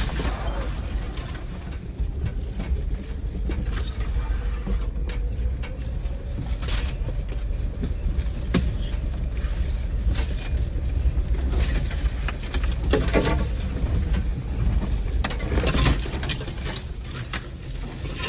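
Off-road side-by-side vehicle's engine running steadily at low speed on a rough dirt trail, with scattered knocks, creaks and rattles as it goes over the bumps.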